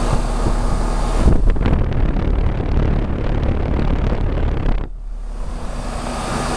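Rheem RPKB-036JAZ heat pump outdoor unit running in heat mode: a steady compressor hum under the rush of the outdoor fan, with air buffeting the microphone. The level drops a little about five seconds in.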